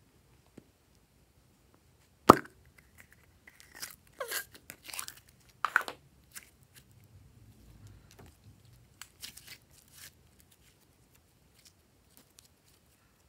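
A sharp plastic click as a capsule-shaped slime container is popped open, then sticky crackling and squelching as blue slime is pulled out, stretched and squeezed by hand, fading to softer squishes.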